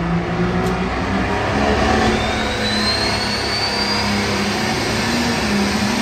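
John Deere pulling tractor's engine running hard under full load as it drags the weight-transfer sled down the track. A high whine rises in pitch for about two seconds in the middle.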